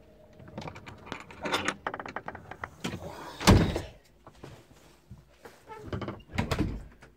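Rustling and knocking of a handheld phone camera being moved and pressed against the body, with one heavy thump about halfway through.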